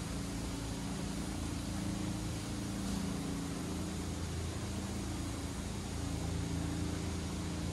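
Steady city-street background: a low hum of traffic engines and building machinery under an even hiss, with no distinct events.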